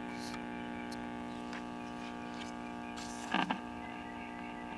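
Vintage tube radio-phonograph humming steadily through its speaker while powered up, a buzzy mains hum typical of open filter capacitors in an old AC/DC set. A brief soft sound comes about three and a half seconds in.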